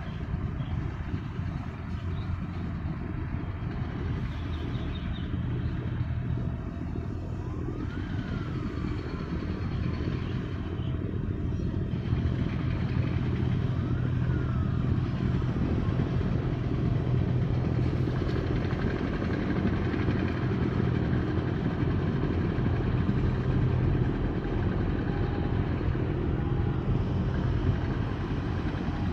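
Steady low engine rumble with a deep hum, getting a little louder about twelve seconds in. A couple of faint whines rise and fall over it.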